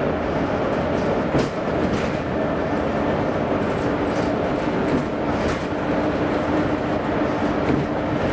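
Volvo B9TL double-decker bus's six-cylinder diesel engine running steadily while cruising, heard from inside the lower deck together with tyre and road noise. There are a few brief clicks of interior rattle.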